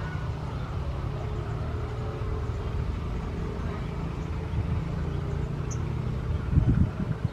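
Diesel-electric locomotive running at low power as it rolls slowly in at the head of a passenger train, a steady deep engine drone with a faint higher hum. A few heavy low knocks come about six and a half seconds in.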